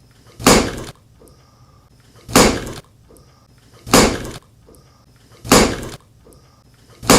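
Heavy crashing impacts, evenly spaced about every one and a half seconds: four blows and a fifth just starting at the end. Each is a sudden smash that dies away within about half a second.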